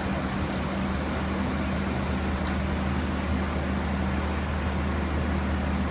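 Steady low drone and hiss of a moving vehicle's cabin, with an unchanging low hum underneath.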